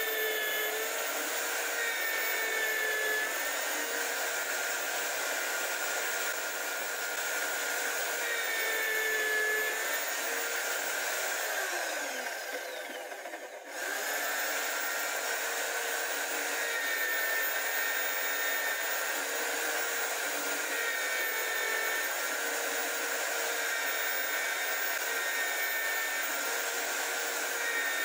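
High-speed motor of a homemade drill press spinning a straight fluted bit, milling a pocket into plywood, with a steady whine. About halfway through it winds down in pitch and drops out briefly, then runs steadily again.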